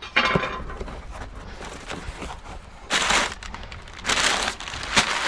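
A cardboard shipping box being opened by hand: a short scrape of tape and cardboard at the start, then crumpled brown kraft packing paper pulled out, crinkling in short bursts about three and four seconds in.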